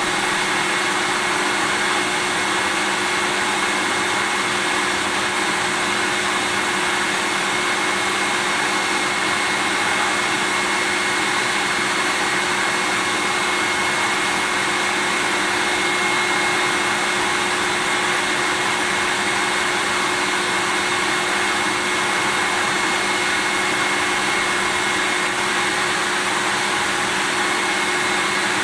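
Vacuum cleaner running steadily: a continuous motor whoosh with a steady high whine over it and a fainter low hum, unchanging throughout.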